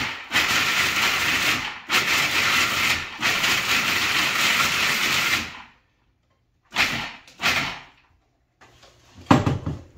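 Electric food processor chopping whole hazelnuts, run in three pulses and stopping about five and a half seconds in. A few short knocks follow near the end.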